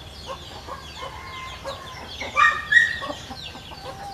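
Small birds chirping quickly and repeatedly, with a domestic chicken calling loudly twice about two and a half seconds in.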